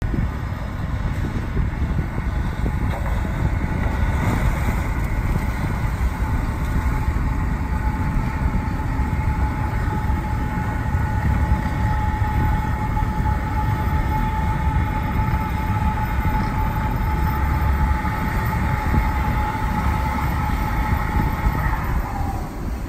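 Ice-breaking tug William H. Latham pushing through broken river ice: a continuous low rumble of engine and grinding ice, with a steady high squeal over it that dips in pitch and stops about a second before the end.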